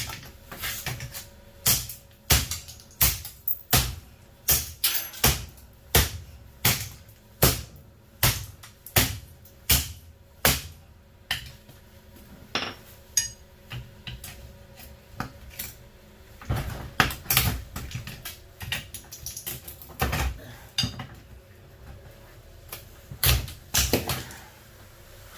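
A hammer striking metal parts of a dishwasher being knocked apart for scrap, steady blows about one and a half a second for the first ten seconds, then irregular clanking and rattling.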